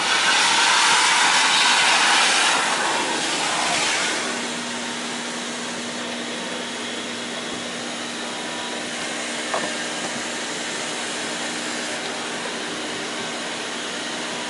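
Shop vacuum sucking up debris through its hose, loud for the first few seconds, then settling to a quieter steady hum with a low tone. A single short click about two-thirds of the way through.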